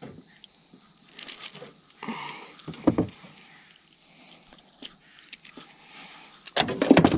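Handling noises of unhooking a small bass from a topwater lure: scattered clicks, rattles and light knocks of hooks, lure and hands, with a louder knock about three seconds in and a burst of knocks and rustling just before the end.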